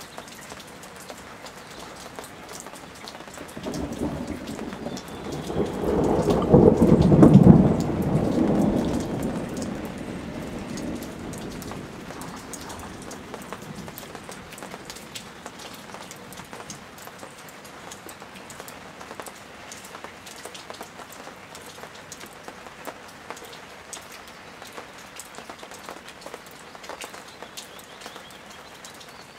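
A roll of thunder swells about four seconds in, peaks a few seconds later and dies away slowly, over steady rain falling with a fine crackle of drops.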